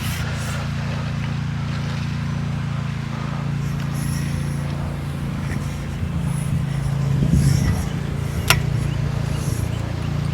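An engine running steadily with a low, even drone, with a single sharp click about eight and a half seconds in.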